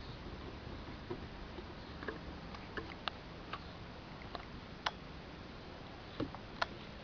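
Scattered light clicks and taps at irregular intervals, with the loudest near the middle and near the end: puppies' claws on wooden deck boards as they move about and paw upward.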